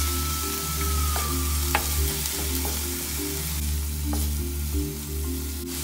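Chopped onion, tomato and green pepper sizzling in a stainless steel pan as a wooden spoon stirs them, with a few light taps of the spoon against the pan. Background music plays underneath.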